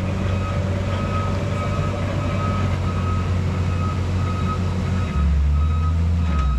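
Reversing alarm on heavy diesel equipment beeping about twice a second over the machine's engine running. A little over five seconds in, the engine note drops lower and gets louder.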